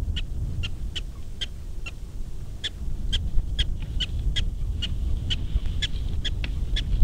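Prairie dog barking its alarm call: a steady series of short, sharp, high chirps, about two a second.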